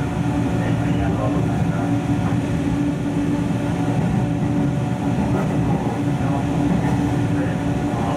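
JNR-era express-type electric train running, heard from inside the car: a steady hum from the motors and gearing over the rumble of wheels on rail.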